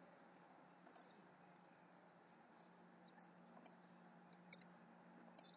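Near silence: faint steady room hum with a few soft scattered clicks from the computer mouse.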